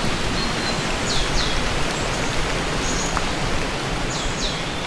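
Woodland birds singing: pairs of high, downward-sweeping chirps twice, about three seconds apart, with a short high note between, over a steady hiss.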